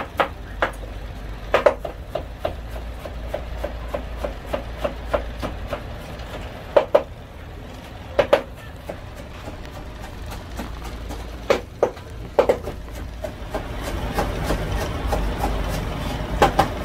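Knife chopping tomato and vegetables on a cutting board: scattered sharp knocks with runs of light quick taps between them. A low rumble builds near the end.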